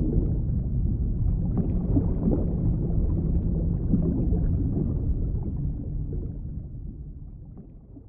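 Low, muffled underwater rumble and water noise with no clear events in it, fading out over the last three seconds.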